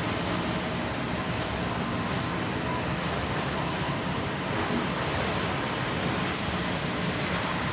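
Factory machinery running with a steady, even noise and a faint hum.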